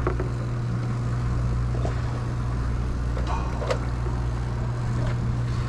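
Sportfishing boat's engine idling with a steady low hum, with a few light knocks on deck.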